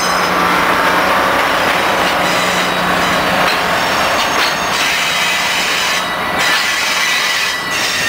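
EMD GP38 diesel locomotives passing close by, their low engine hum fading after about three seconds, then passenger cars rolling past with steady wheel noise and thin high squealing from the wheels on the rails.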